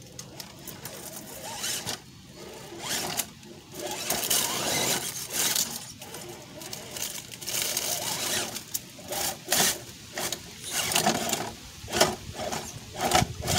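Redcat Gen7 RC rock crawler's electric motor and gears whining in short, irregular throttle bursts while its tyres scrabble and scrape on rock. The bursts grow louder and closer together near the end as the truck tips over.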